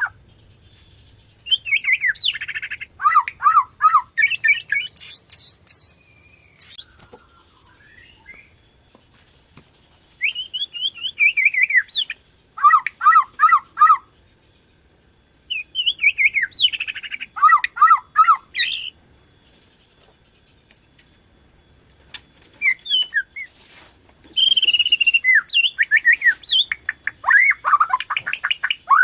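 Borneo-type murai batu (white-rumped shama) singing in full song. Four bursts of fast, varied whistled phrases come with short pauses between them, mixing quick falling whistles with runs of repeated lower notes. This is the kind of lure song played to set other murai batu singing.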